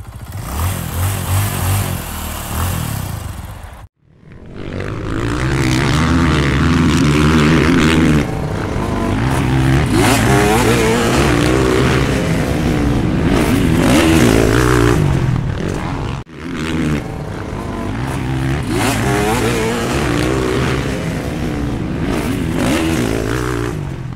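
Motocross dirt bike engines running and revving, rising and falling in pitch. They come in three stretches, cut off sharply about four seconds and sixteen seconds in.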